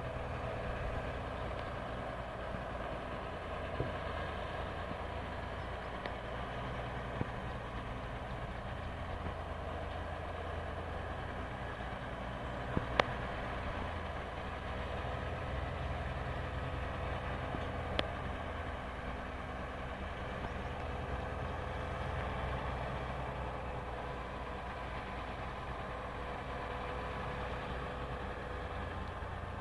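A logging truck's engine runs steadily through the whole stretch. A few sharp knocks or clanks stand out over the hum, the loudest about 13 seconds in.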